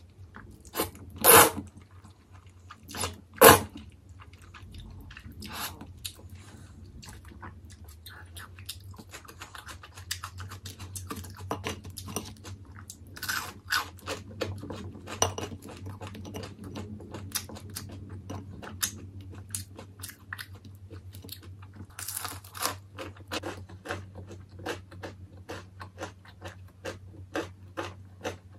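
Close-miked mukbang eating: two loud slurps of jjajangmyeon noodles in the first few seconds, then crunchy chewing of battered, deep-fried tangsuyuk pork, with many small crackles.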